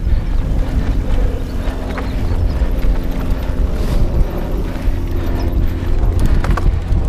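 Mountain bike ridden fast over a dirt singletrack: a steady low rumble of wind on the microphone and tyres on dirt, with the bike's chain and frame rattling in scattered clicks and knocks, a few sharper ones near the end.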